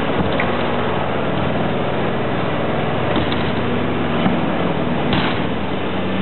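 Ice resurfacing machine running on the rink, a steady engine drone filling a large, echoing arena, with a couple of short knocks near the end.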